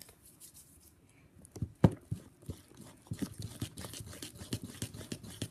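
A spoon stirring wet, sticky slime in a bowl: squelching and clicks of the spoon against the bowl. It starts with a few knocks about a second and a half in and becomes a quick, irregular clicking run.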